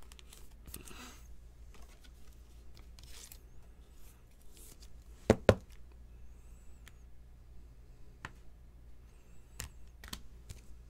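Trading cards and plastic card holders being handled: soft rustles and light clicks, with two sharp plastic clicks close together about five seconds in.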